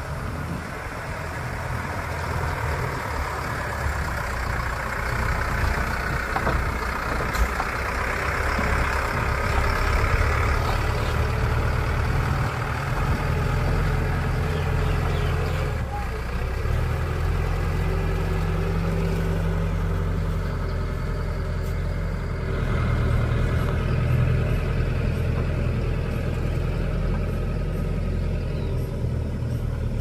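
Heavy diesel engines of a dumper truck and a backhoe loader running steadily, the engine note rising a couple of times and briefly dropping about halfway through.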